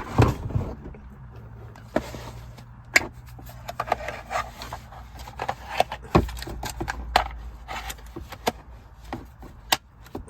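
Irregular plastic clicks, knocks and rubbing as a battery pack is handled and fitted onto a cordless impact wrench, over a faint low hum.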